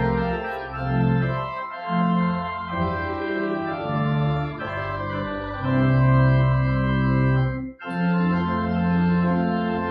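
Organ playing held chords, with a brief break in the sound near the end.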